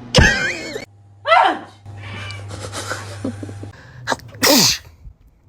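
A person sneezing loudly several times: a hard sneeze right at the start, another about a second in, and a third near the end.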